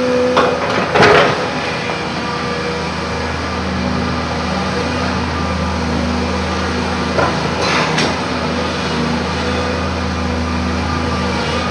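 Volvo EC210 crawler excavator's diesel engine running steadily under load, with a few sharp knocks of rock and steel: two near the start, the loudest about a second in, and two more around seven to eight seconds.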